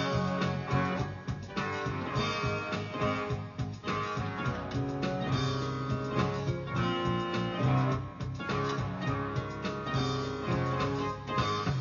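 Instrumental guitar music: a steady run of plucked notes and strummed chords.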